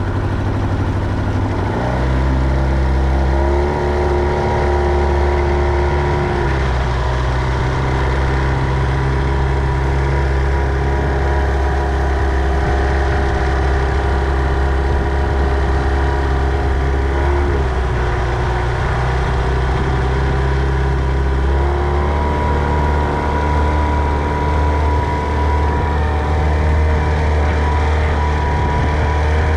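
Tohatsu 25 hp outboard motor running under way. Its revs climb about two seconds in, then shift up and down a few more times as the throttle is changed.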